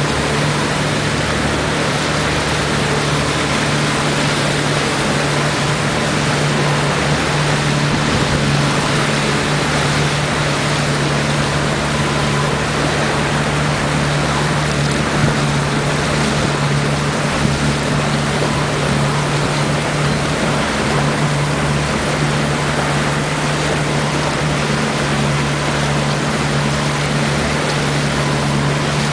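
Motorboat's engine running steadily with a constant low hum, under an even rushing noise of water and wind.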